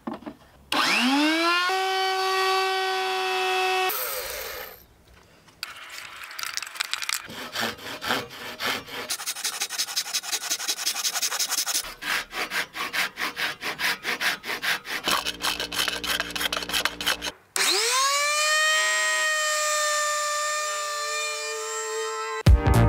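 A handheld electric router spins up with a rising whine and runs steady, finishing the heel face of a wooden boat frame on a jig. Then comes a long run of quick handsaw strokes cutting through the wood. Near the end the router spins up again and runs steady.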